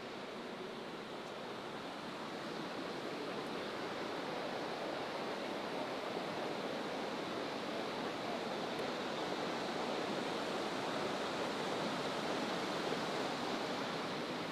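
Steady rush of fast-flowing water, growing gradually louder over the first few seconds.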